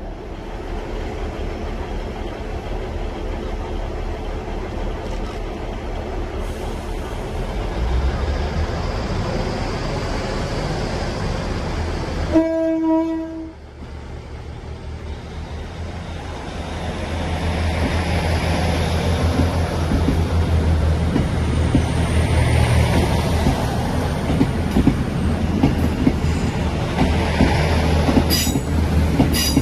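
ScotRail Class 156 Sprinter diesel multiple unit running at the platform, with a short horn note about halfway through. Its diesel engines then build up as the train pulls away, with wheel-on-rail clatter and brief high wheel squeals near the end.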